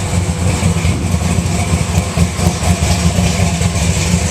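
Camaro's 427 V8 engine idling, loud and low, with a rapid uneven pulse.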